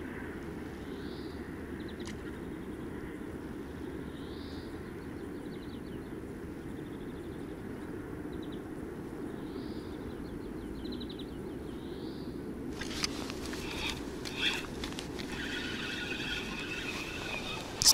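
Steady low rushing of riverbank ambience, with a small bird calling faintly four times, each call a short rising note followed by a quick trill of ticks. In the last few seconds fishing gear is handled, giving scattered clicks and knocks, then one sharp loud click near the end.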